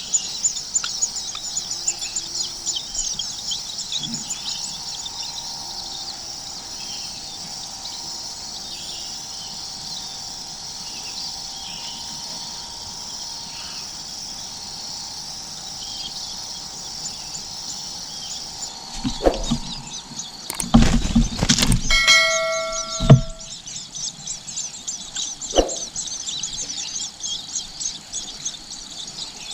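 Nestling birds chirping, a dense, rapid, high-pitched chatter throughout. Past the middle come a few seconds of loud knocks and rustling, with a short pitched call in among them.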